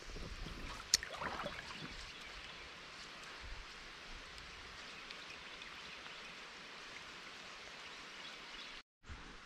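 Steady rippling of shallow river current over a rocky bottom. A single sharp click about a second in, with a little splashing just after.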